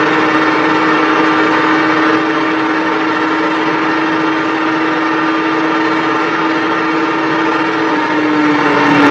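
Suzuki Hayabusa motorcycle engine held at high revs at high speed, a steady engine note under heavy wind rush. The note sags slightly in pitch near the end, then cuts off suddenly.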